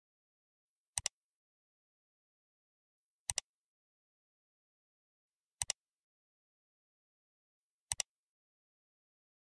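Silence broken four times by a computer mouse click sound effect, a quick double click about every two and a quarter seconds.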